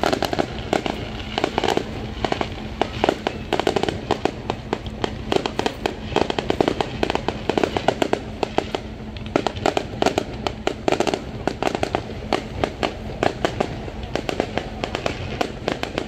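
Fireworks display: aerial shells bursting overhead in a dense, unbroken run of bangs and crackles.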